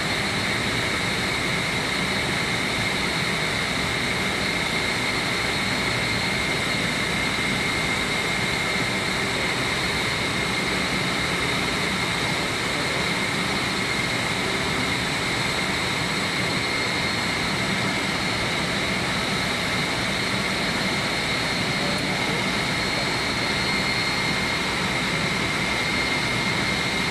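Steady, loud machinery noise of a chiller plant room, with constant high-pitched whines running through it.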